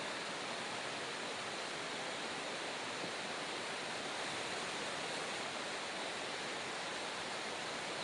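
Steady rushing of a fast-flowing river, an even wash of water noise with a faint tick or two over it.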